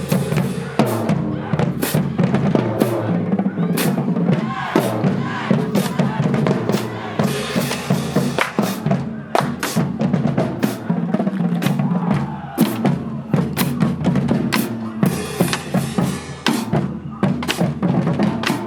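High school marching band drumline playing a marching cadence: snare and bass drums striking in quick, dense rhythmic patterns.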